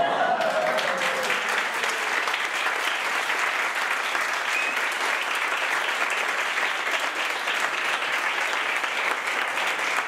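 A room full of people applauding, steady clapping with no break. A voice calls out, long and falling, over the clapping in the first couple of seconds.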